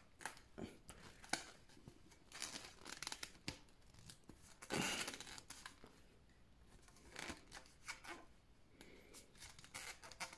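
Faint, intermittent scraping and rubbing as a plastic drainage pipe is pushed into and pulled out of a tight 1.5-inch rubber flexible coupling, with light clicks and one longer, louder scrape about five seconds in. The coupling's band needs loosening a little more to let the pipe in.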